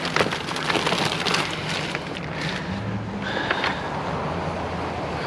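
Clattering and rustling of scrap being handled in a dumpster for the first couple of seconds, then a steady low rumble with a brief high squeak about three and a half seconds in.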